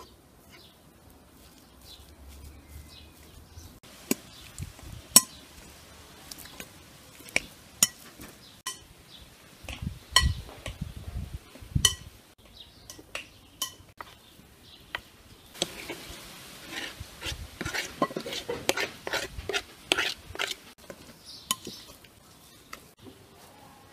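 Metal fork and wire potato masher clinking and scraping against a glass bowl as boiled potatoes are mashed and mixed with shredded chicken. First separate sharp clinks every second or so, then a busy run of clinking and scraping for about five seconds in the second half.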